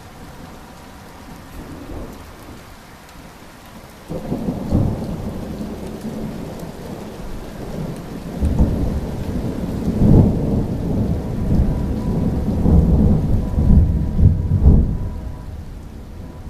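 Thunder rumbling over steady rain. It breaks in suddenly about four seconds in, swells through several heavy low peals and dies away near the end.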